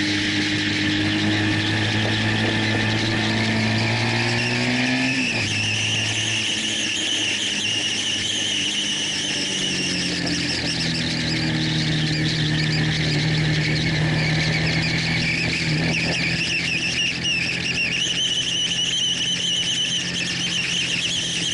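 Honda VFR1200's V4 engine running at track speed, heard from an onboard camera with heavy wind rush over the microphone. The engine note climbs for about five seconds, drops suddenly, and then holds steady.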